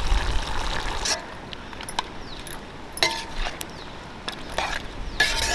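Metal kitchen utensils clinking against cooking vessels: about six sharp, separate clinks, several with a short metallic ring. They follow a hissing noise that stops about a second in.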